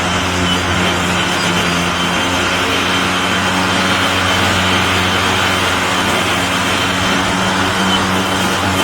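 EGO POWER+ cordless electric lawn mower running, a steady low hum of the spinning blade with a constant high-pitched motor whine over it.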